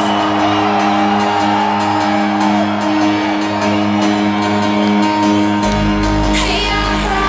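Hardstyle intro music over a large sound system: sustained synth chords held over a bass line. A deeper bass comes in about five and a half seconds in, then a bright rising swell near the end.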